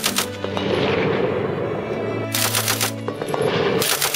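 Lewis light machine gun firing short bursts of automatic fire at roughly ten shots a second. A burst ends right at the start, another of about half a second comes a little after two seconds in, and a third starts near the end.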